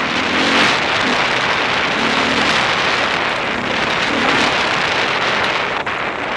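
Steady rush of wind and riding noise on a helmet camera's microphone while an enduro motorcycle is ridden off-road, with the engine's note coming through faintly in short spells.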